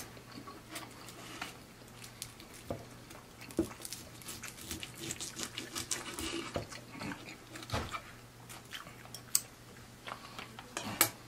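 Knife and fork cutting through a crispy fried lobster tail: crackling batter and sharp clicks of the metal utensils against the food and the wooden board, busiest in the middle, with wet chewing sounds mixed in.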